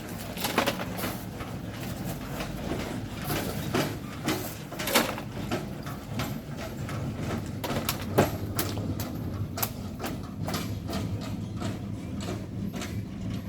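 Irregular knocks and scrapes of hand tools working volcanic sand and stone, three sharper strikes standing out, over a steady low engine hum.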